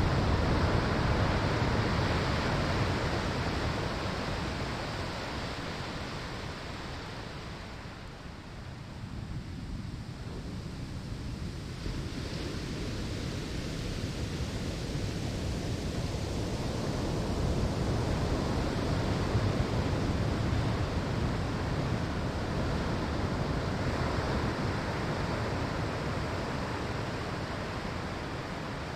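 Ocean waves breaking on a sandy shore: the wash of one wave ebbs away over the first several seconds, then another swells and breaks past the middle and slowly recedes toward the end.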